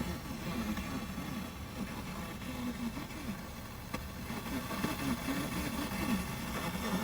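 Car FM radio with weak reception: a faint voice comes through steady static hiss over the car's running and road noise. The static is from another radio station mixing in on the frequency.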